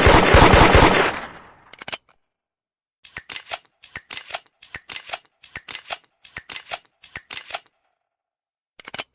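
A single loud gunshot from a Colt Single Action Army revolver at the start, ringing off over about a second and a half. From about three seconds in come some seven evenly spaced clusters of small metallic clicks, roughly one every 0.6 s, from the revolver's action being worked, and a couple more clicks near the end.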